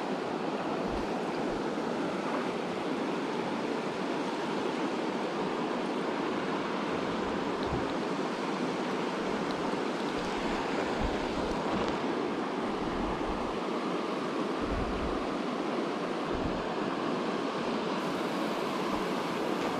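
Shallow mountain stream running over rocks, a steady rush of flowing water, with a few soft low bumps on the microphone.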